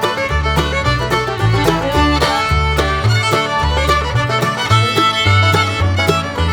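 Background music: an upbeat fiddle tune in a bluegrass or country style, over a walking bass line and a steady beat.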